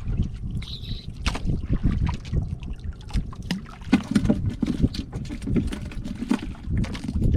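Water splashing and lapping against a small fishing boat, with a low, uneven rumble and many short knocks and clicks on the boat.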